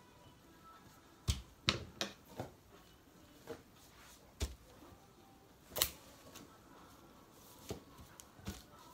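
Kitchen scissors snipping through a quail carcass: about nine short, sharp snips at uneven intervals, the loudest a little before six seconds in.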